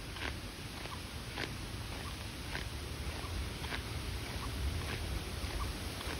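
Slow, even footsteps, about one a second, over a steady low rumbling noise.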